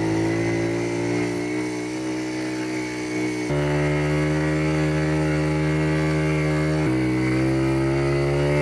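Motorcycle engine running under the rider on a sandy track, its note stepping abruptly to a new pitch twice.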